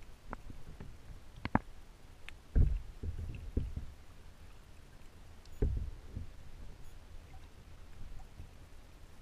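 Water moving around a submerged camera, heard muffled: a low rumble with dull thuds, the loudest about two and a half seconds in and again near six seconds, and a few sharp clicks.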